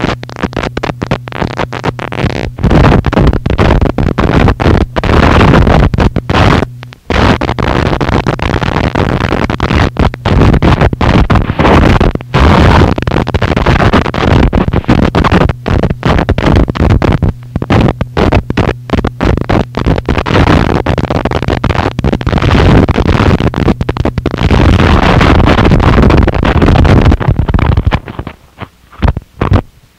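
Harsh noise music: a loud, dense wall of distorted noise, cut by frequent short dropouts, over a steady low hum for most of its length. Near the end it thins into quieter, broken sputters.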